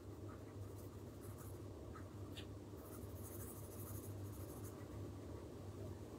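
Faint scratching of a Derwent Chromaflow coloured pencil on drawing paper as a colour swatch is shaded in, over a steady low hum. The scratching is strongest about halfway through.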